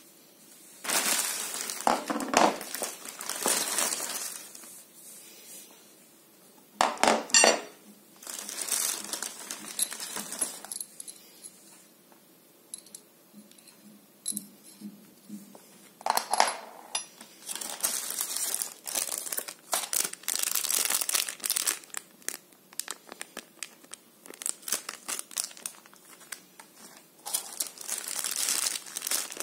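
Clear plastic zip-lock bags of mounting hardware crinkling and rustling as they are handled, in repeated bursts, with a few sharp clicks of metal bolts about seven seconds in.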